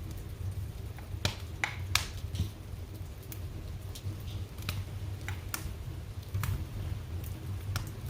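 Fire burning in a fireplace: irregular sharp crackles and pops over a steady low rumble of the flames, the loudest pops about one and two seconds in.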